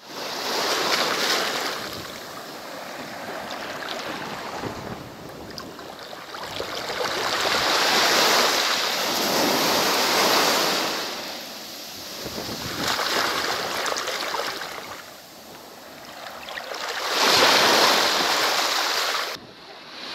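Small waves breaking and washing up a sandy beach, the surf swelling and fading in several rushes, loudest near the end, then cutting off abruptly just before the end.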